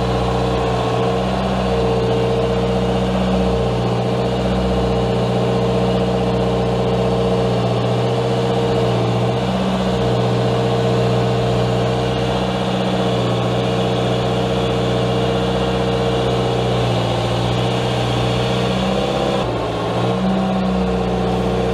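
Compact loader's engine running steadily with a steady whine over it while its sweeper-collector attachment picks up fallen leaves from the lawn; the pitch sags briefly twice near the end.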